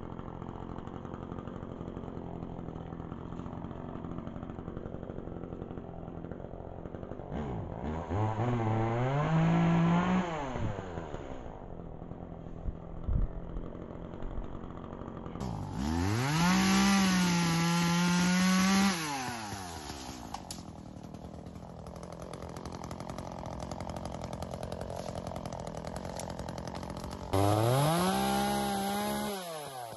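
Chainsaw revving three times: each burst rises quickly in pitch, holds for a couple of seconds and falls away. The last comes as the saw is set to a fallen log.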